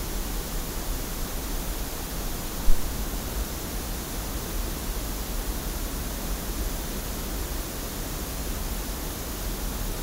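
Steady pink-noise test signal from a PA, picked up by an Audix TR40 measurement microphone. A single sharp pop comes about two and a half seconds in, as a Whirlwind ISO2 isolation transformer is plugged into the phantom-powered mic line.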